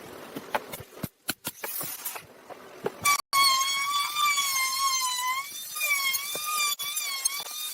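A few clicks and knocks, then from about three seconds in a power tool's motor whining loudly, its pitch wavering up and down.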